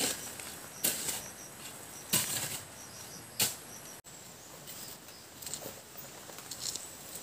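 Insects trilling in steady high tones, with four short rustling crunches about a second and a quarter apart in the first half, then softer scattered rustles after a brief dropout about four seconds in.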